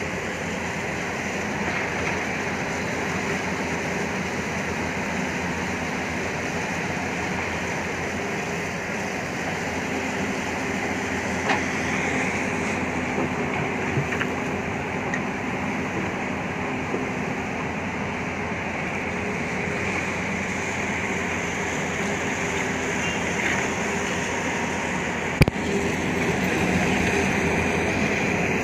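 Tata Hitachi crawler excavator's diesel engine running steadily under working load as it digs in rock and earth, with one sharp knock near the end.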